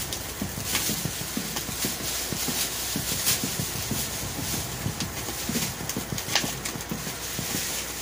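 Chicken thighs sizzling and crackling on a grill over open flames, with a steady hiss and many irregular small pops. These are typical of fat rendering off the thighs and dripping into the fire.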